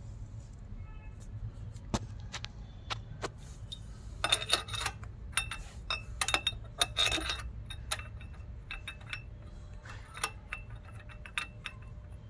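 Metal clinks and ticks of steel bolts and a socket against the engine's crankshaft pulley as the bolts are threaded in by hand, in scattered bursts, over a steady low hum.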